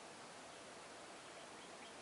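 Near silence: steady low background hiss.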